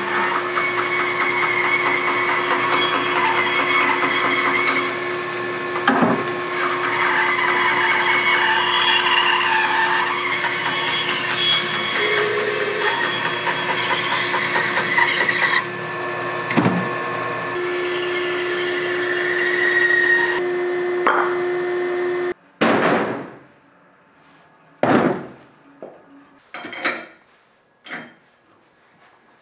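A woodworking power tool running and cutting wood: a steady hum under a changing cutting noise. It stops abruptly near the end, followed by a handful of sharp wooden knocks.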